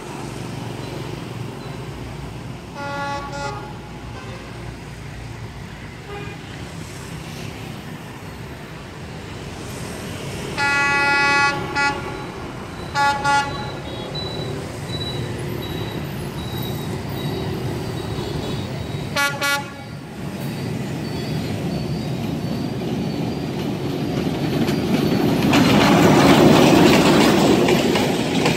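Approaching diesel passenger train sounding its horn several times: a short blast, then a long blast with shorter ones after it, then two quick toots, over a steady low rumble. Near the end the train passes close with a loud, building rush of wheels and coaches.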